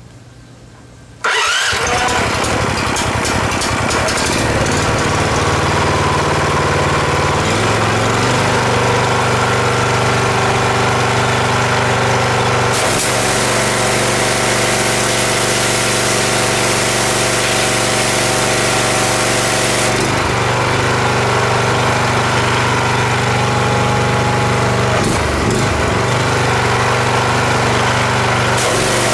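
An 18-horsepower engine driving a pressure washer pump comes in suddenly about a second in and runs steadily at a higher pitch from about seven seconds on. A loud hiss joins it for about seven seconds in the middle.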